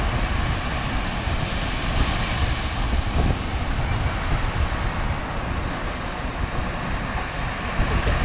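Wind buffeting the microphone in a steady, gusting low rumble, over the wash of ocean surf.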